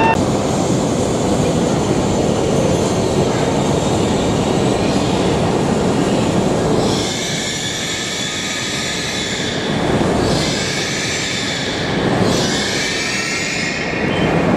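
E5-series Shinkansen train pulling into the platform and slowing to a stop, a steady rush of running noise. A high squeal from the wheels and brakes comes in twice, about halfway through and again near the end.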